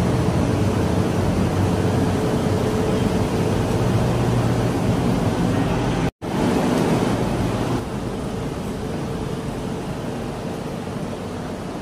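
Steady rumble and hiss of a moving vehicle heard from inside, with a low hum; it cuts out for an instant about six seconds in and is a little quieter after that.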